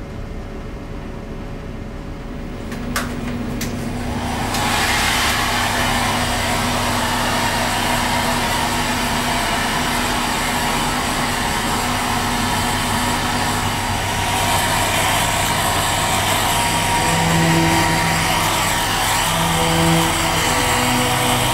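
A handheld hair dryer switched on with a click about three seconds in, its motor and fan building over a second or so into a steady, loud rush of blown air with a low motor hum beneath.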